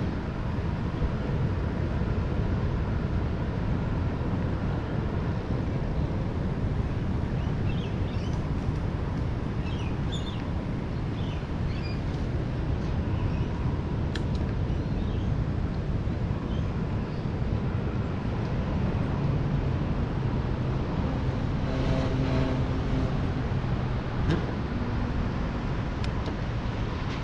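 Steady low rumble of wind on the microphone and tyre noise while riding an electric mountain bike, with a few faint high chirps about eight to twelve seconds in and a brief low pitched hum a little past the twenty-second mark.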